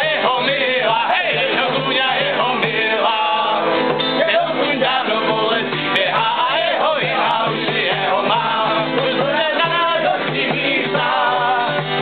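A song played live on acoustic guitar, with singing over it.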